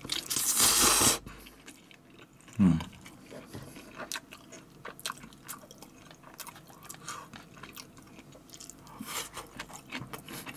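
A person slurps up a mouthful of Jjawang instant jjajang noodles for about a second, then chews with many small wet mouth clicks and lip smacks. There is a short voiced hum about two and a half seconds in.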